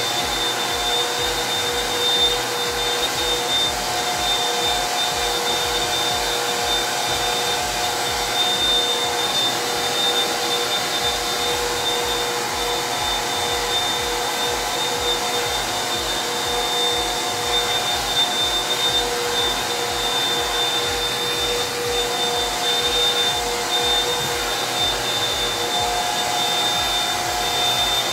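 Handheld hair dryer running steadily, a rush of blown air with a constant high motor whine.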